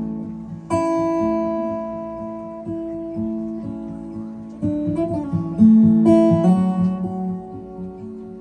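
Acoustic guitar playing an instrumental intro: picked notes and strummed chords left to ring, with harder strums about a second in and again around five and six seconds.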